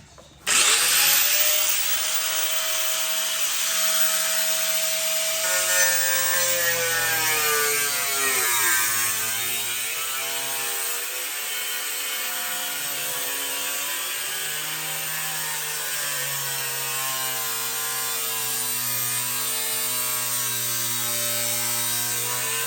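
Electric saw starting up and cutting through a door to make a pet-door opening, its motor running steadily, with the pitch sagging under load at about eight to nine seconds.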